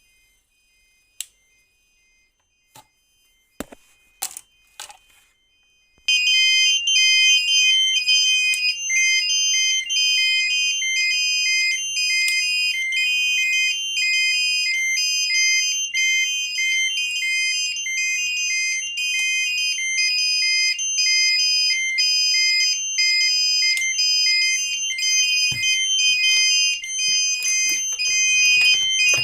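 Fire alarm going off: an electronic sounder starts abruptly about six seconds in with a loud, high-pitched pattern of short beeps alternating between pitches, repeating steadily. This is the fire signal after a smoke detector has tripped. Before it, a few faint clicks.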